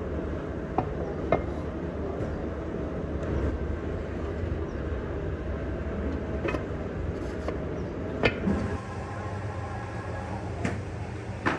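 Steady low workshop rumble with a few sharp metal clanks and knocks as a metal pattern and a steel moulding flask are handled on a sand mould. The loudest knock comes about eight seconds in.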